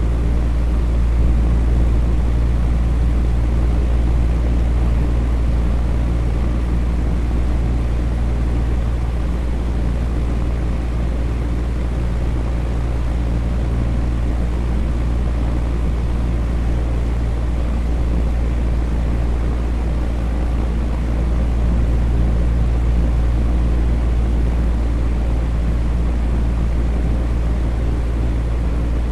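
Electric fan running steadily: an even rush of air over a strong low hum, with no change in speed.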